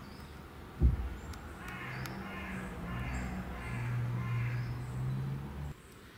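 A single thump, then a run of harsh animal calls about twice a second over a low steady hum that cuts off suddenly near the end. Faint high chirps sound throughout.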